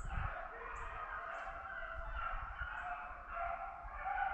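A pack of rabbit hounds baying as they run a rabbit, several dog voices overlapping at different pitches.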